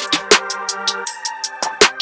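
Electronic phonk music with a fast hi-hat pattern, heavy kick drums and sustained synth tones.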